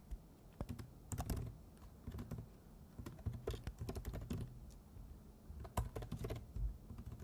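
Typing on a computer keyboard: irregular key clicks in short bursts, with brief pauses between them, as a command is typed out.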